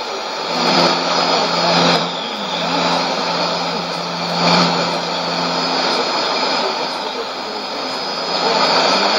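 Shortwave broadcast received on a Sony ICF-2001D portable receiver: a loud bed of hiss and static with a steady high whistle, and a low buzzing test tone from about half a second in until about six seconds, the strange test sound of the Nauen transmitter sharing 5990 kHz with China Radio International.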